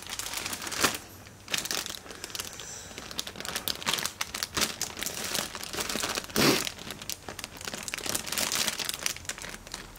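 Clear plastic bag crinkling irregularly as a coil of green fuse is handled inside it and pulled out, with one louder rustle about six and a half seconds in.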